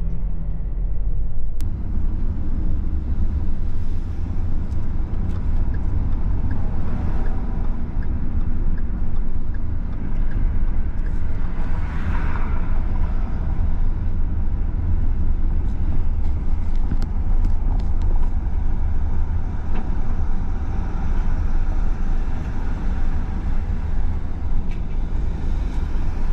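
Steady low rumble of road and engine noise from a moving car, starting abruptly about a second and a half in as background music cuts off, with a brief swell about halfway through.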